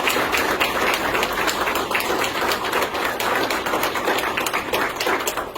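Audience applauding, a dense steady stream of hand claps that dies away near the end.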